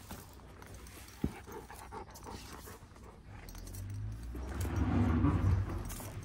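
Two young Kangal dogs play-fighting, one mouthing the other's head. A low growling builds from about halfway through and is loudest near the end, with one sharp click about a second in.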